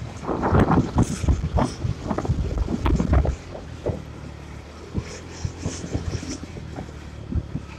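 Wind buffeting the microphone on a moving small motorcycle, over the steady noise of the engine and tyres on the road. The buffeting is heavy for about the first three seconds, then eases to a lower rumble with occasional gusts.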